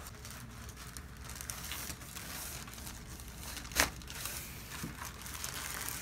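Paper and clothing rustling as a patient shifts on a chiropractic table's paper-covered headrest, with one sharp crack about two-thirds of the way through.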